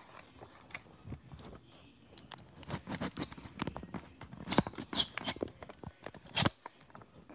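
Handling noise of a phone held in the hand: scattered clicks, taps and rubs against the microphone. They grow busier from about two and a half seconds in, with the loudest knock about six seconds in.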